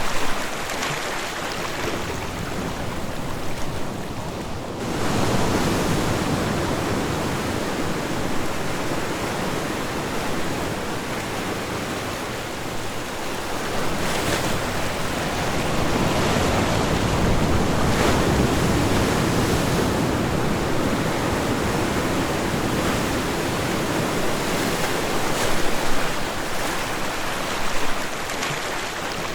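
Ocean surf rushing onto a shore in a continuous wash that swells and ebbs, with a wave surging in about five seconds in and a longer swell near the middle.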